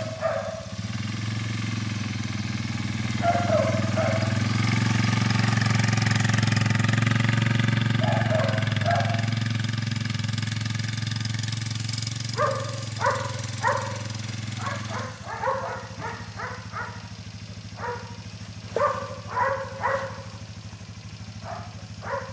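ATV engine running steadily as the quad is ridden, dropping to a quieter idle about fifteen seconds in. Short barks from a Belgian Malinois puppy come a couple of times early, then in quick runs over the last ten seconds.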